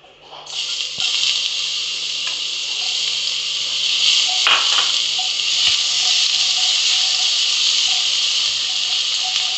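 Garlic sizzling in hot olive oil in a non-stick pan. The hiss starts suddenly about half a second in as the garlic hits the oil and then runs steadily, with a single light tap about halfway through.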